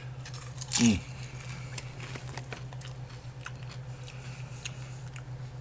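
A person chewing spicy microwave popcorn, with scattered small crunching clicks. A short vocal sound falls in pitch about a second in. A steady low hum runs underneath.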